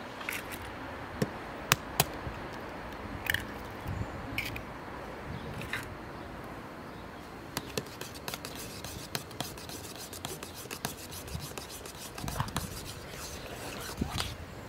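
Scraping and rubbing handling sounds with scattered sharp clicks, turning about halfway through into a quick run of small clicks and scrapes.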